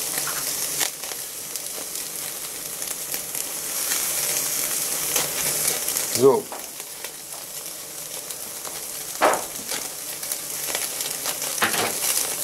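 Rib-eye steak searing on the grate over a glowing ceramic infrared gas burner: a steady, high sizzle full of small crackles, with one brief louder noise about nine seconds in.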